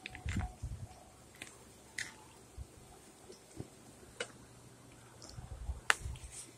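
Close-up eating sounds: chewing with low bumps, broken by a few sharp clicks of a metal fork against a plastic food tray, the loudest near the end.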